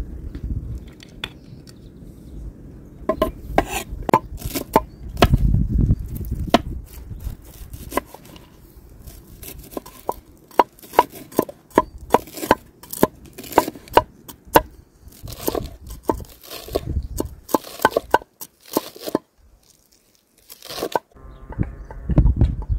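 Large kitchen knife chopping walnuts on a wooden cutting board: a quick, irregular run of sharp knocks as the blade hits the board, with the nut pieces crunching. The chopping stops about a second before the end.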